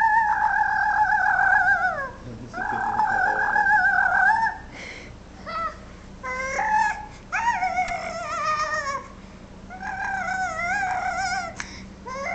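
A young child making silly high-pitched vocal noises: about five long squealing cries, each held a second or two and falling slightly in pitch, with short breaks between.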